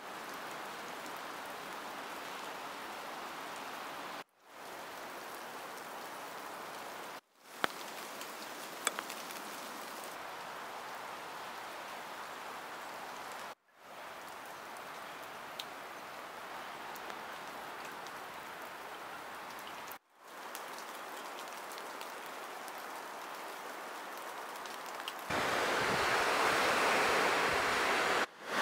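Steady rain falling on wet forest ground, leaves and a fallen trunk, with a few sharp drop hits and brief gaps where the sound breaks off. Near the end it gives way to the louder, fuller sound of ocean surf washing onto a beach.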